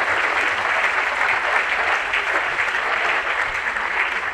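Audience of seated soldiers and families applauding, a dense steady clapping that eases slightly near the end.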